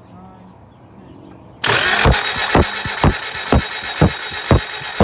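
Toyota 2ZZ-GE four-cylinder engine cranking on the starter motor, starting suddenly about a second and a half in, with the compression strokes coming as regular thumps about twice a second; the freshly installed engine is turning over but not catching.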